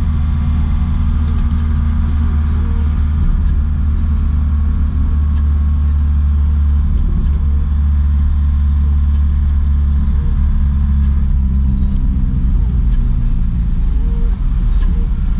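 Diesel engine of a JAC cargo truck running steadily while driving, a low, even drone.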